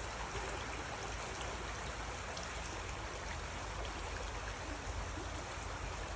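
Flowing water running steadily, an even unbroken rush like a stream.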